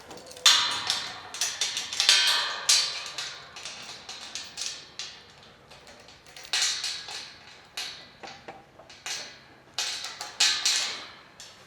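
Irregular clattering knocks and taps, coming in quick clusters, with the loudest runs about half a second in, around two seconds in, near six and a half seconds and near ten and a half seconds.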